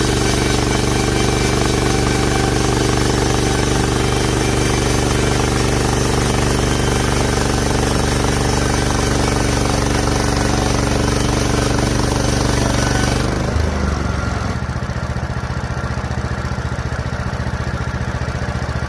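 Portable sawmill running under load as it saws along a timber beam, a steady engine note with the cutting noise. About 13 seconds in the sound changes to a lower, more rhythmic running, as the cut ends and the engine eases off.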